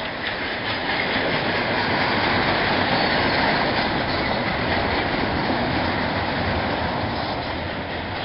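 Double-stack intermodal freight train's loaded well cars rolling past, a steady rumble and rattle of steel wheels on rail that swells slightly in the middle.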